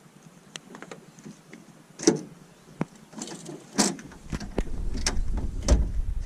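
Scattered knocks and clicks of gear being handled in a fishing boat, with a few sharper thumps around the middle; a low steady rumble comes in about four seconds in and grows louder.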